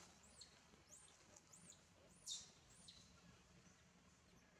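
Faint, high-pitched animal chirps, short arched calls about two a second, the loudest about two seconds in, thinning out near the end, over a faint steady background hum.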